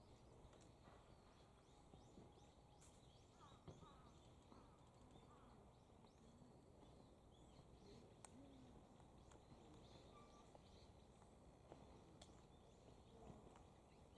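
Near silence: a faint steady background hum with scattered faint chirps of small birds and a few brief sharp clicks.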